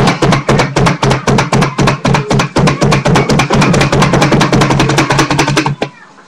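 Rapid, regular knocking, about eight strikes a second, over a steady low hum, stopping suddenly near the end.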